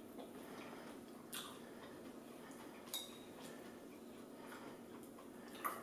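A spoon clinking against a bowl and high-chair tray, three sharp clicks spread over a few seconds, the second one ringing briefly.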